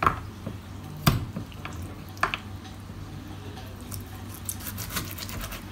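A broad-bladed kitchen knife cutting raw beef into smaller pieces on a wooden chopping board: a few sharp knocks of the blade on the board, the loudest about a second in, with quieter slicing and handling of the meat between.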